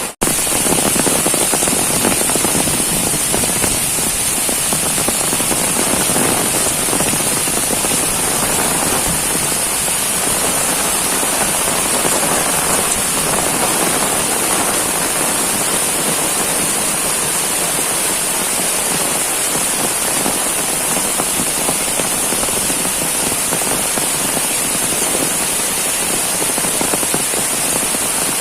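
Heavy rain pouring steadily, a dense hiss of water with many sharp little impacts of drops striking hard surfaces.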